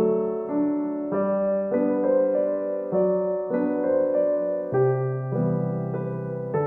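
Background music: a gentle electric piano playing slow, sustained chords that change about once a second.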